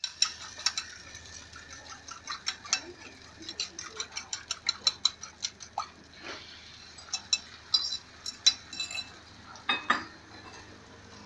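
Irregular clinking of a utensil against a ceramic bowl and a metal cooking pan while beaten egg is worked and poured out onto the oiled flat pan. The clinks come a few per second, with a louder knock near the end.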